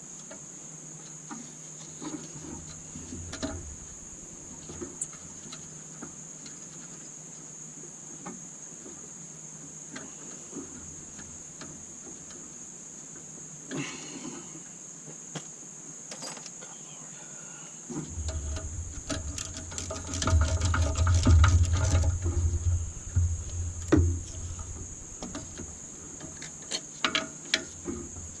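Knocks, clinks and handling noise of tools and engine parts being worked, sparse at first and then dense and louder for several seconds past the middle. A steady high-pitched hum or chirring runs underneath throughout.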